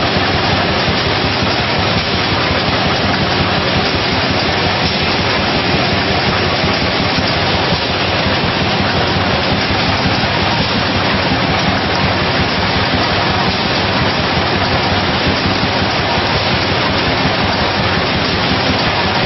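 A 24,000-bottles-per-hour rotary PET blow-moulding and filling combi block running at production speed: a loud, steady, unbroken wash of machine noise.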